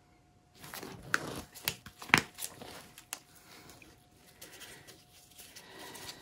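Plastic paint cups and bottles being handled, picked up and set down: a run of sharp clicks and taps with crinkling in between, starting about half a second in.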